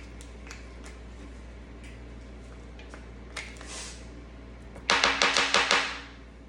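Food packaging being handled and opened: a soft rustle about three and a half seconds in, then a quick run of about seven loud, sharp crackling clicks lasting about a second, near five seconds in, over a steady low hum.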